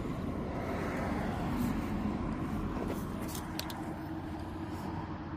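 Steady low rumble of road traffic, with a few light clicks about three seconds in.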